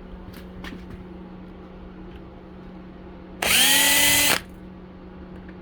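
Power drill spinning up and running for about a second, its pitch rising at the start and then holding steady, as it drives out the screw on the end of an LED track-light fixture.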